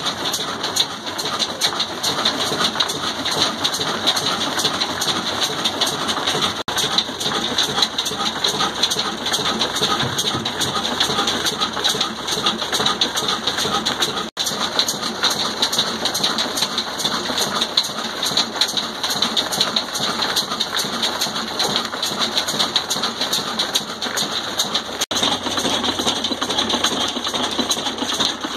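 Old Ruston Hornsby single-cylinder horizontal diesel engine running steadily under load, its flywheel and belt driving a stone atta chakki flour mill: a dense, continuous mechanical clatter.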